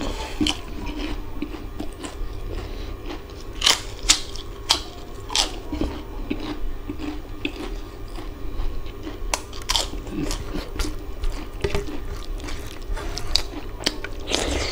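Mouth sounds of a person eating rice and mutton curry by hand: wet chewing and lip-smacking with irregular sharp crunching bites, louder ones about four seconds in and again near ten and fourteen seconds, over a low steady hum.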